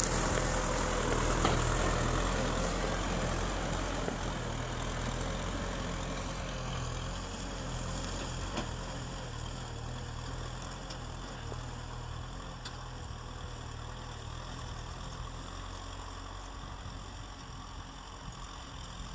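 Kubota farm tractor's diesel engine running steadily, slowly growing fainter as the tractor moves away.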